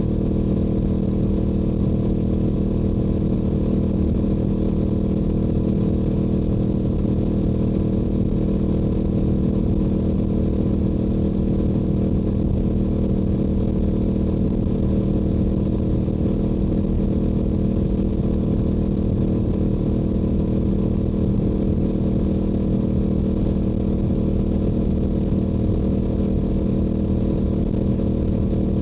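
Stock Yamaha R7 parallel-twin engine and exhaust at a steady highway cruise, holding one unchanging note with no revving or shifting.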